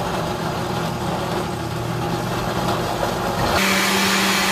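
Countertop blender running on a jar of chopped vegetables and chicken broth, the motor's hum mixed with the churning of chunks. About three and a half seconds in the pitch steps up and the sound turns smoother and steadier as the contents become a smooth purée.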